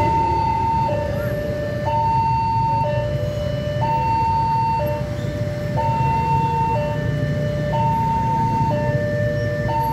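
Railway level crossing warning alarm sounding its two-tone electronic signal, switching between a high and a low tone about once a second, over a steady low rumble.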